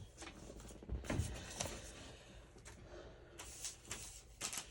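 Scattered rustling and light taps of paper cards and tags being handled and sorted, with a brief louder rustle a little past halfway.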